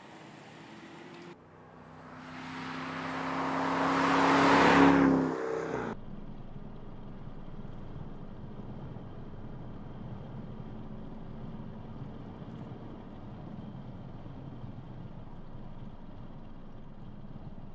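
BMW 6 Series Gran Coupe driving past: engine and tyre noise swell as it approaches, then cut off suddenly about six seconds in. Then steady, muted engine and road noise inside the cabin while cruising.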